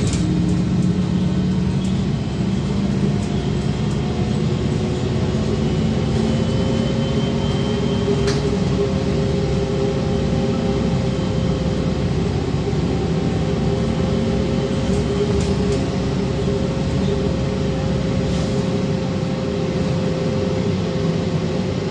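Inside a VMZ-5298.01 trolleybus under way at steady speed: the electric traction drive's steady hum over tyre and road noise, with a few brief rattles.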